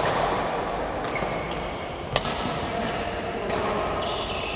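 Badminton rackets striking a shuttlecock during a rally: a few sharp cracks, the loudest about two seconds in.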